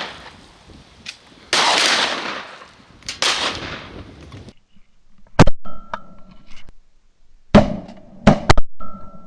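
Wind gusting on the microphone, then a string of shotgun shots: a quick pair about five and a half seconds in, and three more in the last two seconds, with a thin steady tone lingering after some of them.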